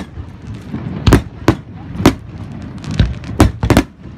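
Fireworks bursting overhead: a quick, irregular series of about seven sharp bangs, some in close pairs, over a continuous low rumble of the display.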